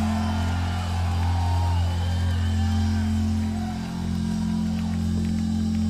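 Live metal band's electric guitars and bass holding a loud, steady low drone as a song rings out, with a brief dip about four seconds in. Faint short gliding tones sound above it.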